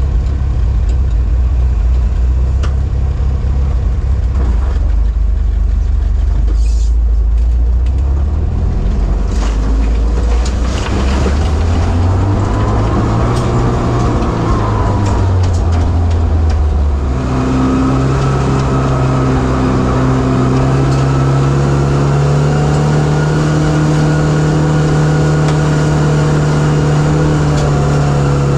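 Steyr-Puch Pinzgauer engine and drivetrain heard from inside the cab while driving off-road: a low engine note at first, with knocks and rattles as the truck bumps along, then about two-thirds of the way through the revs step up and hold steady at a higher pitch.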